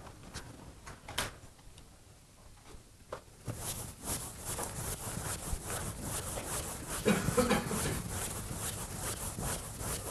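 Quick, repeated rubbing strokes against the lecture board, starting about three and a half seconds in after a few scattered scrapes.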